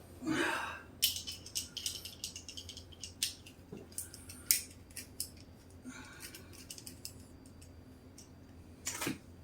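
Quick, irregular small clicks and rattles of metal parts being handled, thick for the first few seconds and then thinning out to faint handling noise.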